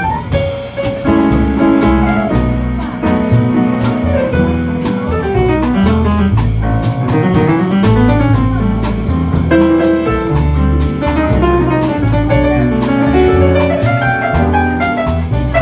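A jazz band playing, with piano over a drum kit and a low line of changing bass notes. The drums mark a steady beat of sharp hits, and the piano runs up and down.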